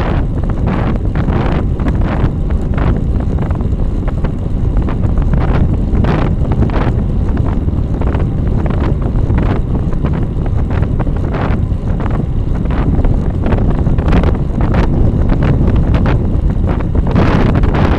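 Wind buffeting the microphone of a rear-facing bike-mounted camera while riding at speed: a loud, steady low rumble broken by frequent gusty bursts.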